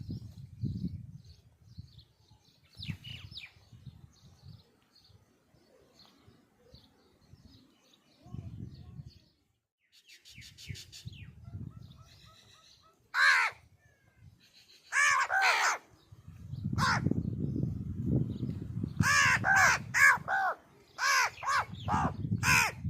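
Crows cawing: one harsh caw about halfway through, two more a couple of seconds later, then a quick run of repeated caws near the end. Faint chirping of small birds and a low rumbling noise come and go in between.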